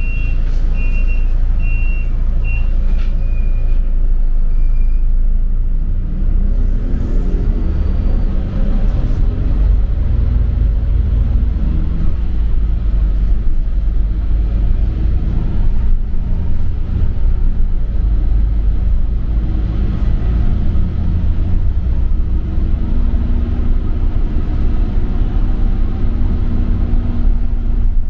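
City bus running with a steady low rumble, heard from inside. A row of short high beeps sounds in the first few seconds, then the bus's drive note rises in pitch as it speeds up about six seconds in and settles into steady running.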